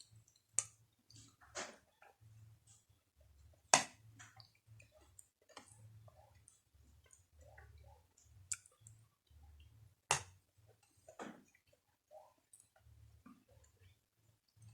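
Close-miked eating of crumbly maize pap with sour milk: soft wet chewing and mouth sounds broken by sharp clicks, the loudest about four seconds in and again about ten seconds in.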